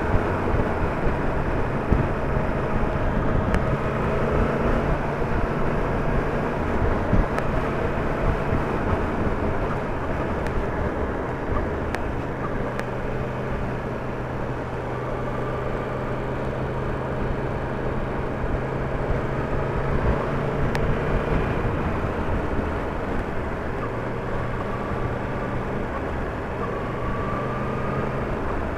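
Yamaha MT-10's crossplane inline-four engine running under way, its note shifting up and down every few seconds with throttle and gear changes, over steady wind and road noise.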